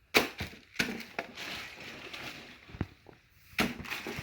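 Sharp knocks and clunks with rustling between them as items are handled and moved about in a box, about four distinct knocks in all.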